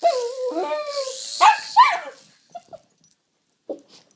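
Jack Russell terrier giving a long, wavering whine, then two sharp barks about a second and a half in, excited by a toy helicopter.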